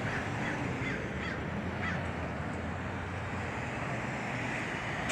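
A bird calling in short chirps, several in quick succession in the first two seconds and a few more later, over a steady low outdoor hum.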